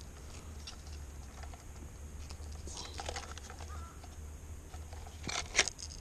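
Small clicks and rattles of a spring-loaded fish lip gripper and handheld digital scale being handled, with a louder cluster of clicks about five and a half seconds in. A low steady rumble runs underneath.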